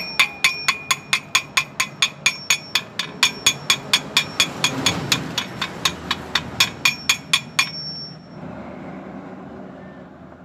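Chipping hammer rapidly tapping slag off a fresh weld bead on a thin steel pipe, about five sharp strikes a second with the pipe ringing after each. The tapping stops about three-quarters of the way through, leaving a brief ring.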